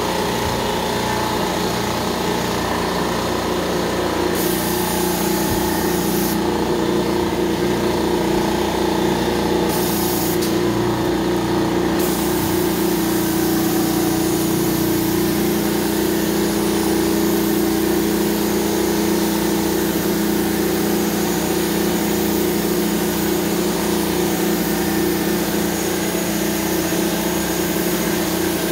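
Carpet-cleaning extraction machine running steadily as its wand sucks water back out of the carpet. The wand's spray hisses on and off during the first twelve seconds, then stays on.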